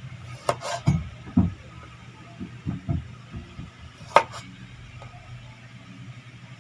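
Large kitchen knife slicing calamansi on a wooden cutting board: a series of knocks as the blade cuts through and hits the board, several in the first three seconds and the sharpest one about four seconds in, over a steady low hum.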